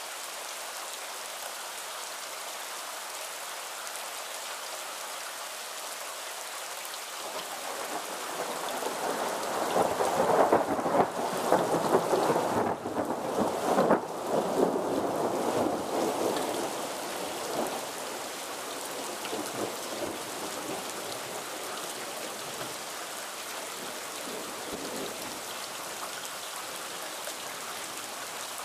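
Steady rain falling, with a long roll of thunder that builds about a quarter of the way in, is loudest around the middle and fades away over several seconds.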